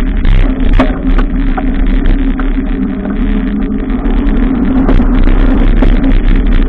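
Steady running noise of a bicycle on the move: a constant low hum with many small clicks and rattles scattered through it.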